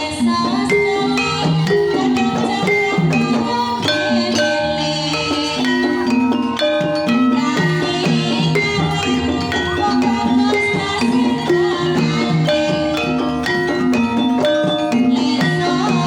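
Banyumasan gending for tayub: tuned mallet percussion playing a dense, steady pattern of short notes over drums.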